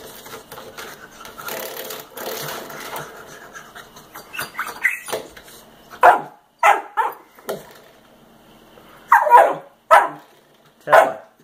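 A young puppy barking: about seven short, sharp barks in two bursts, the first starting about six seconds in and the second near the end.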